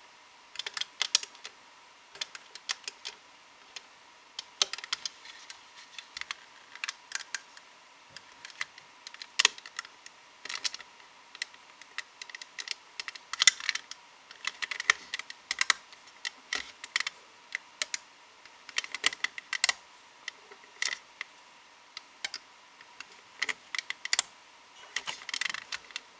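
Irregular light clicks and taps of a hook working rubber bands over the pegs of a plastic loom-band loom, lifting each band off its peg and over.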